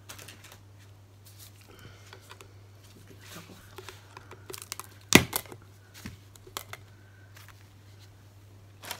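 Lid of a tin of Valspar Wood & Metal gloss paint being prised off with a knife: small scrapes and clicks, then a sharp pop about five seconds in as the lid comes free, and another knock near the end, over a low steady hum.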